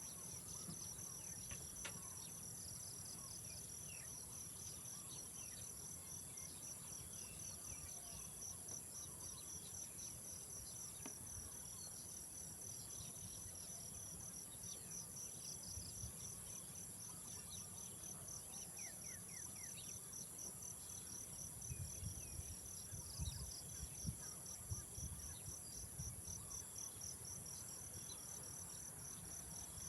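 Insects such as crickets and cicadas chirping together: a steady high trill under a fast, even pulsing chirp. A few soft low thumps come about three-quarters of the way through.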